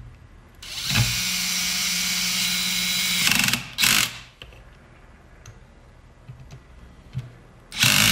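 DeWalt cordless drill/driver driving screws into the back of a steering wheel, running at a steady pitch for about three seconds, then in a short burst, and once more briefly near the end.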